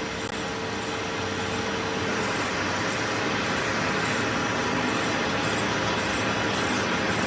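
Steady workshop machinery noise, with a faint high-pitched pulse repeating about twice a second.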